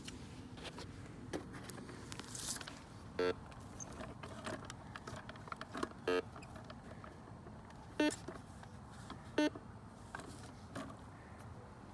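Metal detector giving four short target beeps as its search coil is swept over grass.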